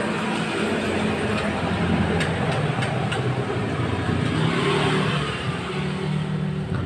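A motor vehicle engine running and passing by, its hum and noise swelling through the middle and easing off near the end, with a few light clicks.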